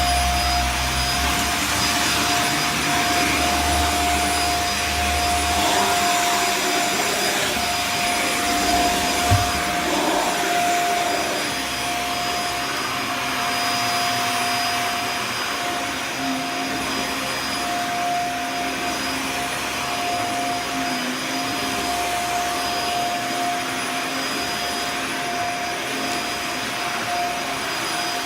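Dyson Small Ball Multifloor upright vacuum cleaner running steadily while vacuuming carpet, its motor giving a constant whine over a rushing airflow. There is a brief knock about nine seconds in.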